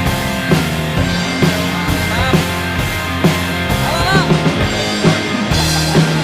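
Rock music with a steady beat and a singing voice.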